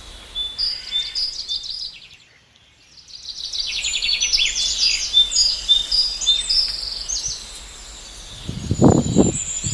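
Many small birds chirping and trilling in quick repeated high notes, dropping away briefly about two seconds in and then thick again. Near the end a louder, low-pitched rustling noise comes in twice.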